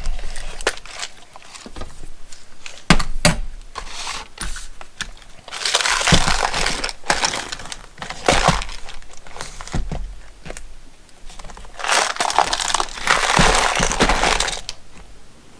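Plastic packages of hardware being handled and moved about, crinkling in two longer bursts, with scattered clicks and knocks of the packages and their contents.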